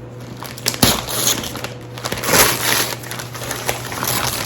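Shipping packaging being handled and torn open: irregular crinkling and crackling, loudest about a second in and again around two and a half seconds.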